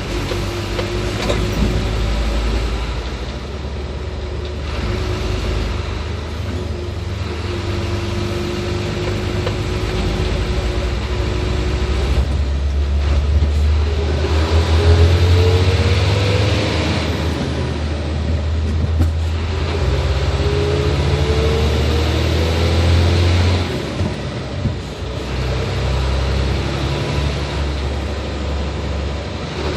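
Hino 500 truck's diesel engine running on the move, its pitch rising twice in long pulls with short drops in between.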